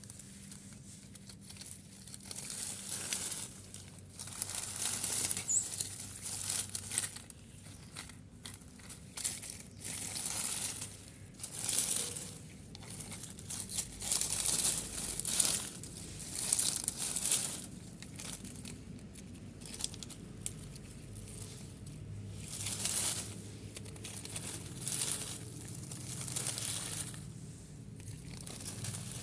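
Dry material rustling and crinkling in irregular bursts a second or two long, over a faint low hum.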